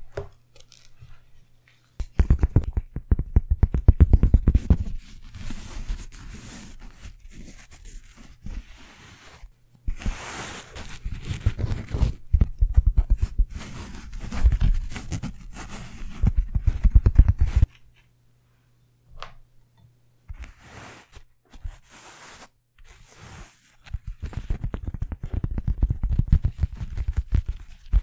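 A hand scratching and rubbing a coarse fibre mat held against the microphone, fast scratchy strokes in several bursts, with a short pause past the middle.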